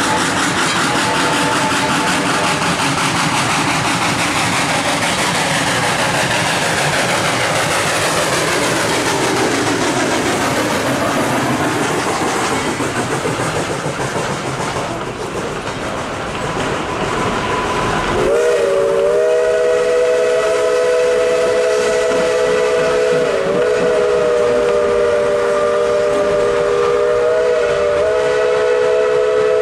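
Narrow-gauge Baldwin steam train passing, its wheels clattering over the rail joints. About eighteen seconds in, a long, steady steam whistle blast sounds as a chord of several notes and holds to the end, its pitch dipping briefly twice.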